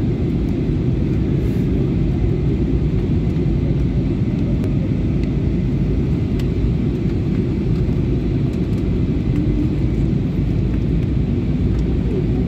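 Steady low rumble of an airliner's engines and rushing air, heard inside the passenger cabin during the descent to land.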